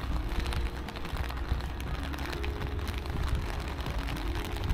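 Steady rain falling on wet stone paving, with scattered sharp drop ticks close by over a low rumble.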